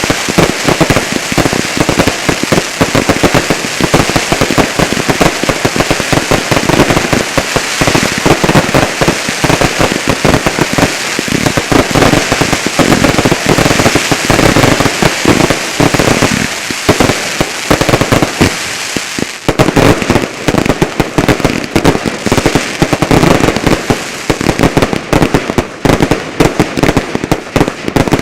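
Fireworks finale: a dense, continuous barrage of rapid bangs and crackling, with a brief lull about two-thirds of the way through before the bangs resume.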